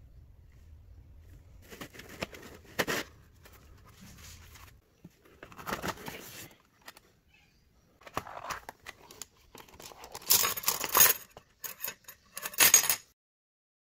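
Packaging being handled: irregular bursts of rustling, crinkling and tearing with light clinks, the loudest run coming about ten seconds in.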